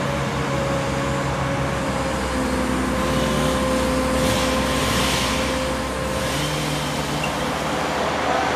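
The engine and hydraulics of a DOLL Tree Trimmer truck-mounted tree-felling crane running steadily as it swings a gripped section of trunk, its tone shifting a couple of times. About four seconds in a hissing rustle rises for a couple of seconds.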